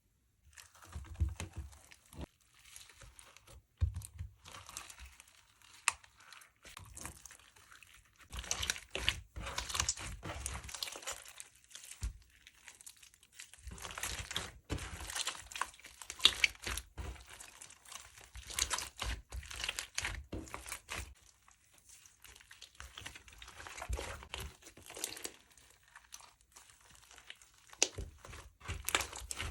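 Slime mixed with clay and cosmetics being squished and stretched by hand, giving many small sticky clicks and crackles. It comes in bursts of a few seconds with short pauses between.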